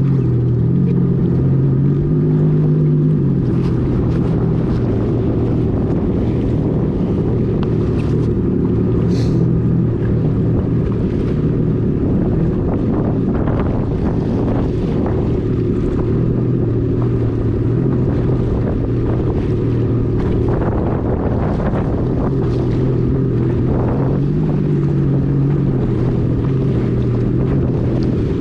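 The three-cylinder four-stroke TR-1 engine of a 2022 Yamaha EX Sport WaveRunner runs steadily at low, no-wake speed, with a low, even drone that dips slightly in pitch about three seconds in. Wind buffets the microphone.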